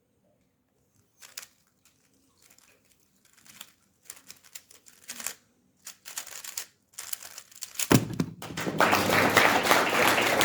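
Plastic clicking and clacking of a speedcube being turned fast during a 3x3 solve, growing denser, then a sharp knock just before 8 seconds as the solve ends, followed by loud applause.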